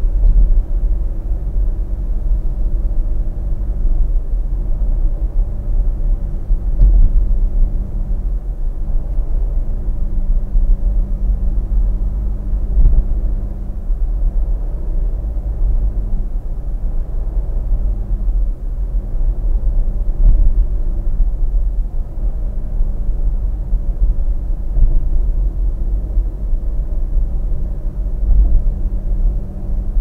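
Steady low road rumble from a car cruising at about 70 km/h, heard from inside the cabin, with a faint low engine hum that comes and goes.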